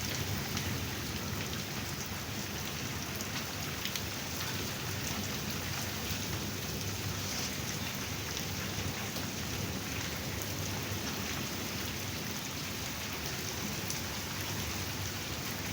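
Heavy rain pouring down steadily, with scattered sharp ticks of drops striking hard surfaces.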